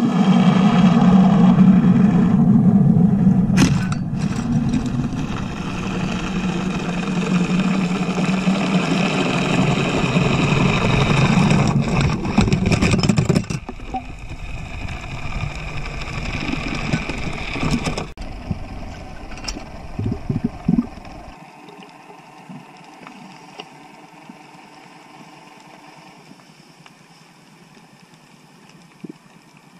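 Boat motor running under load, heard underwater, loud for about the first thirteen seconds, then weaker and fading out around twenty seconds in, leaving a faint underwater hiss. The motor is pulling on the anchor line to trip the anchor's calibrated safety release.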